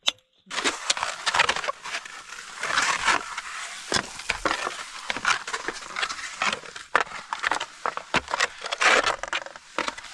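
Skis scraping on steep snow during a descent: a dense, irregular run of short scrapes that starts about half a second in.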